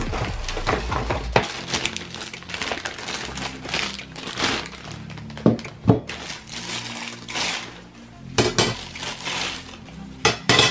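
Plastic packaging crinkling and rustling while black metal laptop-stand parts are handled and set down, with several sharp clanks near the middle and the end, over background music.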